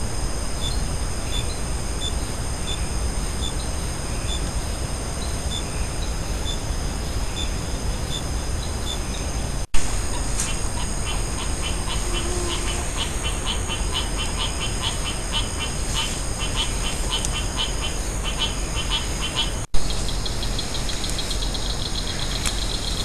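Night insects calling: several steady high-pitched buzzes with a rhythmic chirping that grows dense and fast in the middle, over a constant hiss. Two short clicks about ten seconds apart break the sound.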